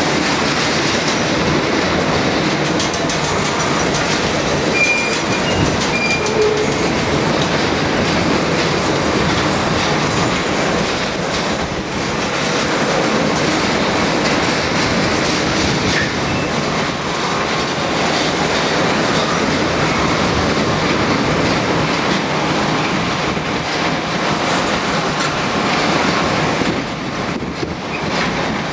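Rail-pickup train of flatcars with steel rail racks rolling slowly along the track, with a steady rumble and clatter of wheels and steel.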